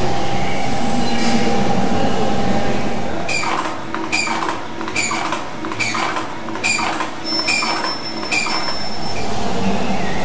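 A steady background hum, then from about a third of the way in a run of short, high squeaks, roughly two a second: a marker pen scribbling on paper.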